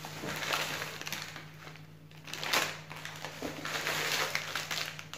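Thin plastic shopping bag rustling and crinkling as it is handled, in irregular bursts.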